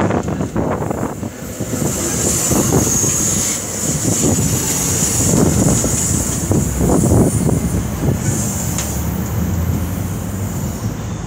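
AMT bi-level commuter coaches rolling slowly past as the train pulls into the station: steady wheel-on-rail rumble with irregular knocks, and a thin high squeal from the wheels or brakes through most of it.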